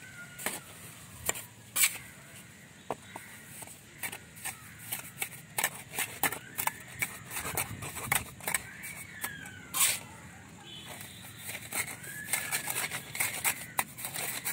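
Mason's steel trowel scraping and clinking against bricks and wet mortar as mortar is scooped and spread along the top of a brick course. The scrapes and taps come irregularly, with sharper knocks about two seconds and ten seconds in.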